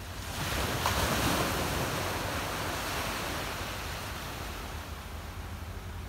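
Sea waves breaking and washing up onto a sandy shore between boulders. The rush swells about half a second in, peaks around a second in, then slowly dies away.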